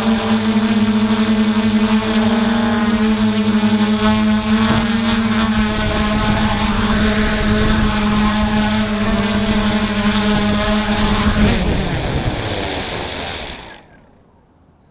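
DJI F450 Flamewheel quadcopter's motors and propellers humming steadily, heard from its onboard camera. Near the end the pitch falls as the motors spool down after landing, and the sound then cuts off abruptly.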